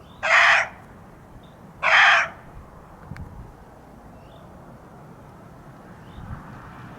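Female muntjac deer barking: two short, harsh alarm barks about a second and a half apart, the call a disturbed muntjac gives when it has spotted a person.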